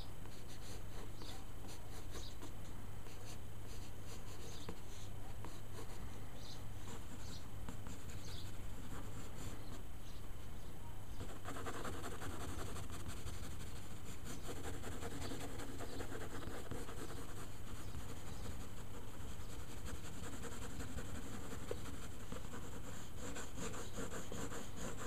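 Wooden graphite pencil sketching on paper: light, scattered strokes at first, then from about halfway in a denser run of quick, scratchy strokes. A steady low hum runs underneath.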